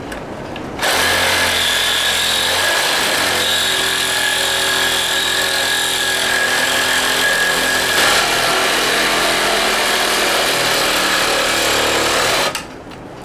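Cordless reciprocating saw running steadily as its blade cuts through a steel PTO shaft tube clamped in a vise. It starts about a second in and stops suddenly shortly before the end.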